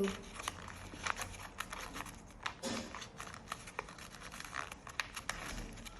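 Sheet of paper being handled and folded: irregular rustling, crinkling and small creasing clicks.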